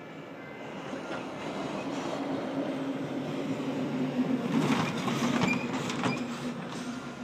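Federal Signal Eclipse 8 outdoor warning siren sounding a steady wail, swelling to its loudest about two-thirds of the way in and then easing off.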